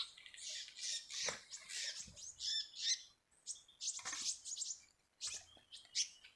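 Small birds giving rapid, high-pitched chirps and twitters in quick runs, with short pauses between them.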